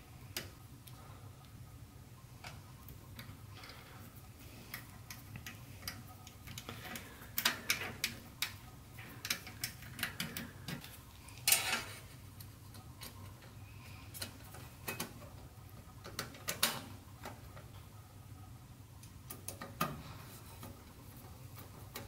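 Screwdriver driving the small screws back into a QNAP NAS's steel drive cage: irregular light clicks and ticks of bit, screw and metal, in scattered clusters, the loudest about halfway through.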